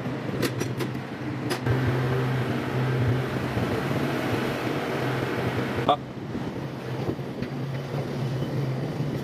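Steady low machine hum, louder from about two to six seconds in, with a few light metallic clicks in the first two seconds.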